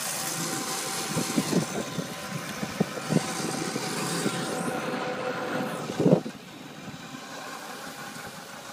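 Riding noise from an electric scooter following a small ATV down a paved street: wind and road rumble with a faint steady hum, and a few knocks, the loudest about six seconds in.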